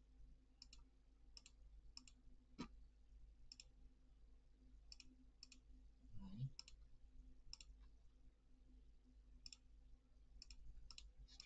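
Computer mouse clicking softly, single clicks about once a second at irregular intervals. A brief low sound about six seconds in.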